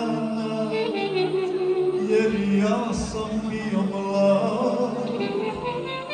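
A man singing a song live into a handheld microphone over backing music, amplified through the hall's sound system, with long held notes.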